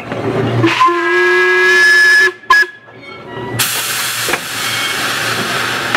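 Narrow-gauge steam locomotive's whistle blown once, a single steady note for about a second and a half, then a couple of seconds later a loud, even hiss of escaping steam that keeps going.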